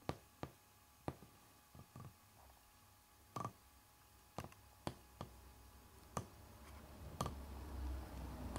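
About a dozen sharp, irregularly spaced clicks over faint room tone, with a low rumble rising near the end.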